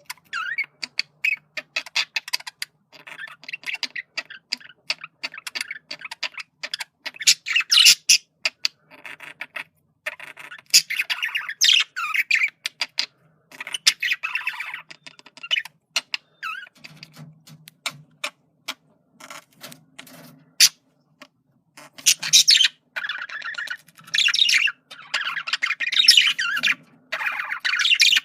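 Male budgerigar chattering: a fast run of sharp clicks, chirps and warbled squawks broken by short pauses, busier and louder in the last several seconds.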